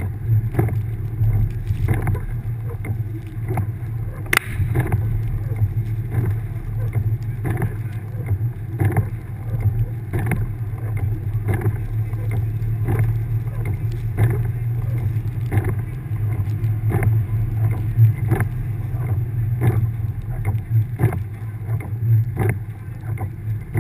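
1999 Subaru Forester's flat-four engine running under load while driving through deep snow, a steady low drone. Irregular knocks and thumps come every half second to a second, with one sharp crack about four seconds in.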